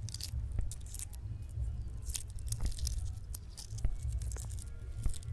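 Shell of hard-boiled eggs cracking and being peeled off by hand: irregular crackling and small crunches as fragments break away, over a steady low rumble.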